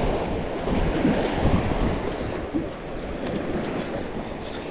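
Wind rushing over the microphone, a steady noisy rush that eases a little after about two seconds.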